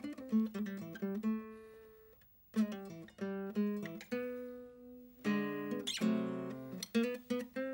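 Acoustic guitar music: single plucked notes that ring and decay, a brief pause about two seconds in, then more picking and a strummed chord a little past the middle.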